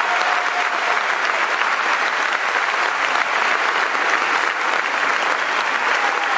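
Audience applauding with steady, dense clapping at the close of an orchestral piece.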